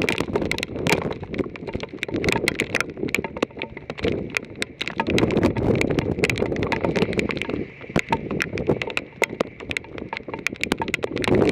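Hailstones pelting the storm-chasing vehicle in irregular sharp clicks and knocks, over gusting wind that swells and dies away several times.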